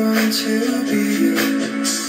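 Music played through a Samsung HW-T550 soundbar and subwoofer from a phone over Bluetooth, at about a tenth of its maximum volume. A song with steady melodic lines, heard as it comes off the speakers into the room.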